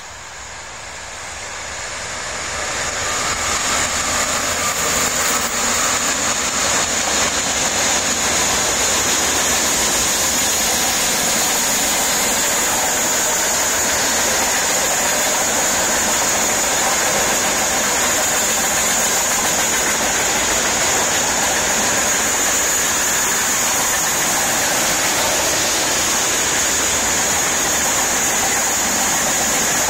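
Freight train of tank wagons rolling past over a stone arched viaduct: the wheel and rail noise swells over the first few seconds as the locomotive approaches, then holds steady as the tank cars go by, with a steady high-pitched whine above it.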